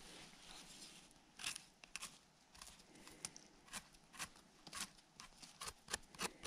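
A knife blade scraping soil off the stem base of a freshly picked aspen bolete (podosinovik), cleaning the mushroom. The sound is a quiet run of quick, irregular short scrapes.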